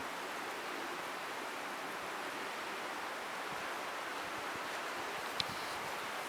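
Wind rushing steadily through the tops of spruce and pine trees, an even surf-like hiss. A single faint tick about five seconds in.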